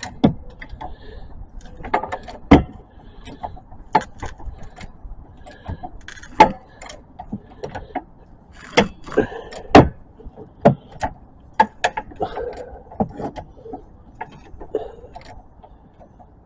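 Irregular sharp metal knocks and clanks, about a dozen, with some louder strikes, from handling a jack and tools around the car.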